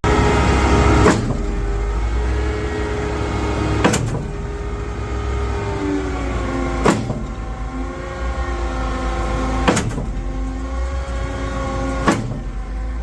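Junjin JJ-H5017 concrete pump truck running its pumping unit: a steady engine hum with hydraulic whine that shifts in pitch. A sharp clunk comes about every three seconds, five in all, as the pumping cylinders change stroke.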